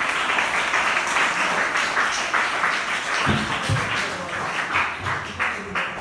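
Audience applauding: many hands clapping in a dense, steady patter that eases off slightly toward the end.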